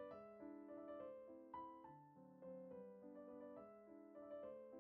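Soft background piano music: a gentle melody of overlapping held notes.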